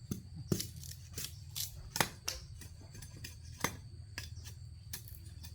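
Irregular crisp snaps and cracks, about a dozen in a few seconds: dry sugarcane stalks and leaves being cut and stripped by hand during harvest.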